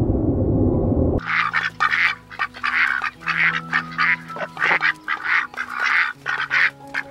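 A low rumbling noise cuts off about a second in, then a bird gives rapid, repeated harsh calls, roughly two a second, over soft background music.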